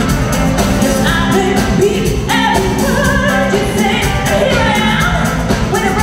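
Live pop band playing: women singing lead and backing vocals over drums with a steady beat, electric bass and keyboards.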